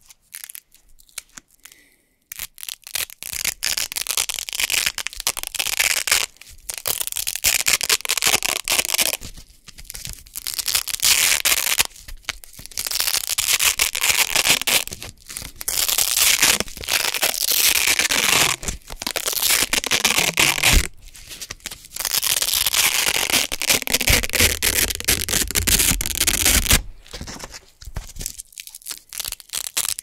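Velcro hook-and-loop circles being peeled apart close to the microphone: a loud, crunchy crackling that comes in long pulls of a few seconds each with short pauses between. It starts about two seconds in, after a few faint clicks.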